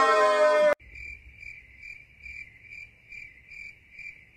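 Cricket chirping sound effect, the stock gag for an awkward silence: a steady run of high chirps, about three a second. It starts abruptly as a drawn-out voice is cut off.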